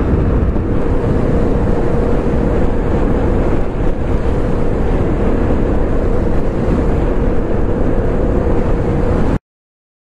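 Yamaha FZ-07 parallel-twin engine running at a steady cruise under heavy wind rush on the microphone. It cuts off abruptly about nine seconds in.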